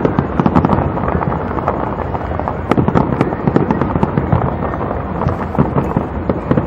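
Fireworks display: a dense, continuous barrage of rapid cracks and bangs from aerial shells and crackling effects bursting over a steady rumble.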